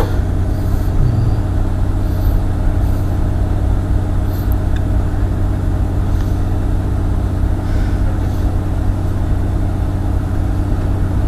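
A steady, low engine drone with a constant hum and no change in pitch or level.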